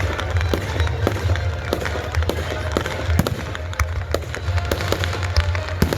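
Fireworks going off: a rapid, irregular run of bangs and crackling pops, several a second, over a steady low rumble.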